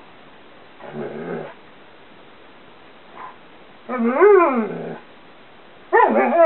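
Karelian Bear Dog/Alaskan Malamute cross "talking" in play: a short low growl about a second in, then a louder drawn-out call that rises and falls in pitch about four seconds in, and another starting near the end.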